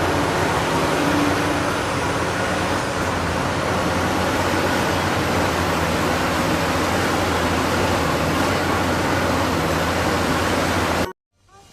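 A heavy machine's engine running steadily, a constant noisy rumble with a low hum, which cuts off suddenly near the end.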